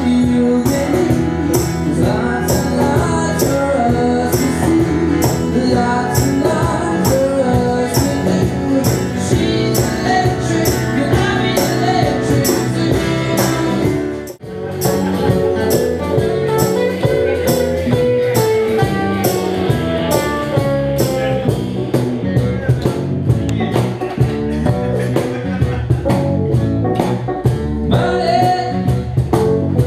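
Live band with a male lead singer, acoustic guitar and keyboard, with percussion keeping a steady beat. The music drops out for a moment about halfway through, then carries on.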